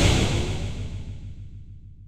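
Cartoon crash sound effect: a sudden loud noisy burst with a deep rumble that fades away steadily over about two and a half seconds.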